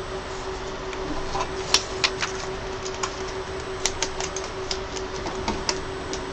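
Scattered light clicks and taps of hands handling and fitting parts on a resin printer's metal frame, irregular and a few per second at most, over a steady hum.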